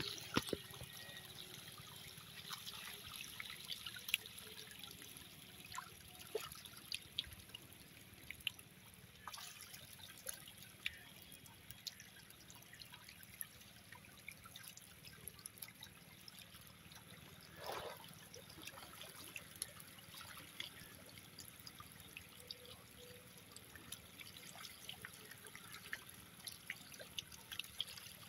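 A crowd of hybrid magur catfish thrashing and feeding at a pond's surface: a steady faint watery splashing and trickling, peppered with many small pops and slurps, with one slightly bigger splash midway.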